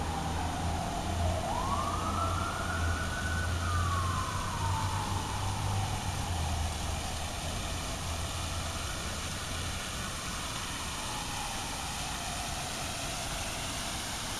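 An emergency vehicle's siren wailing slowly. Its pitch sweeps up about two seconds in, then falls slowly over several seconds and starts to rise again near the end, over a steady low hum that fades about ten seconds in.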